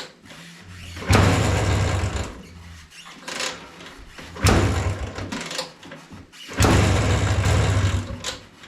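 1997 Vespa P200E's single-cylinder two-stroke engine being cold-started on choke after sitting about a month: three start attempts, each a burst of about a second and a half of the engine turning over and firing before dying away.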